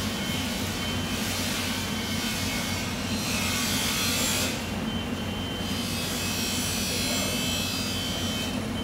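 Long knife sawing through bluefin tuna skin and flesh in rasping strokes that die away about halfway through, over a steady low machine hum.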